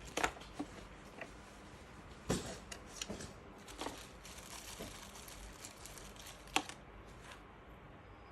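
Parts of a shopping trolley being handled and fitted: a few sharp clicks and knocks at irregular intervals, with light rustling between them.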